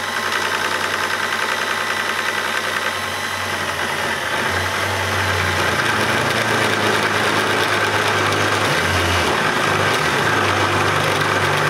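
Cordless battery drill running steadily as it turns a barrel seat cutter on its arbor, fed slowly into a 1911 80% frame held in a cutting jig. A low hum comes and goes from about four seconds in as the cutter works through the frame.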